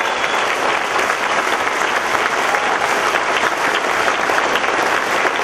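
Banquet audience applauding steadily: a dense wash of many hands clapping.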